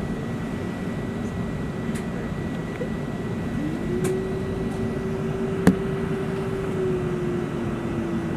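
Steady cabin hum inside an Airbus A380 as it stands holding on the taxiway, with a thin high tone running through it. About three and a half seconds in, a humming tone rises and then holds steady, and about two seconds later comes a single sharp click.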